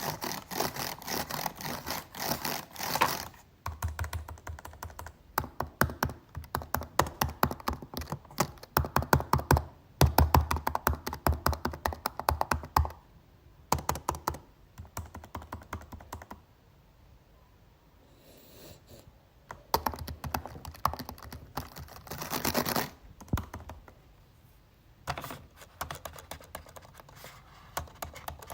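Typing on a computer keyboard: fast runs of sharp key clicks in bursts, with short breaks and a longer quiet lull a little past halfway.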